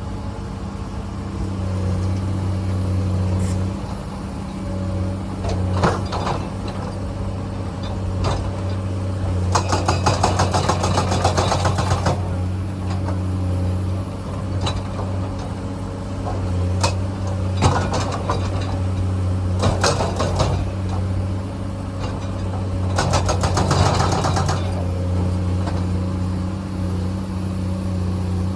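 Hydraulic excavator's diesel engine running steadily while its bucket works rock. Twice, a couple of seconds of dense scraping and rattling are heard, and single clanks and knocks come in between.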